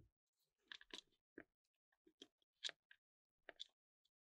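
Faint, scattered clicks and light knocks of small plastic controller parts being handled, irregularly spaced, about two or three a second.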